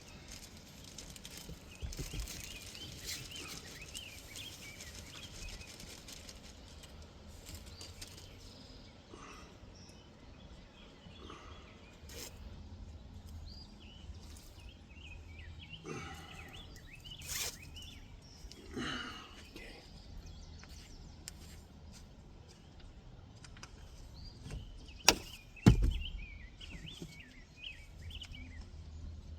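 Small birds chirping on and off over a low steady rumble of outdoor background noise, with two sharp knocks close together near the end.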